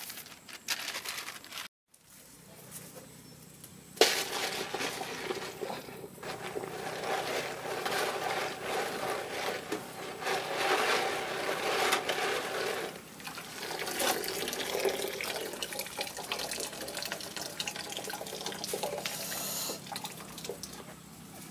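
A brief rustle of cloth, then after a short gap a sudden start of water sounds: a continuous splashing wash that rises and falls in loudness.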